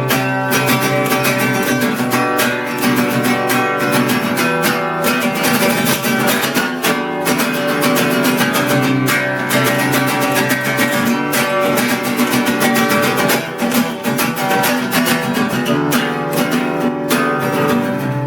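Acoustic guitar music, strummed with a steady stream of strokes, without singing.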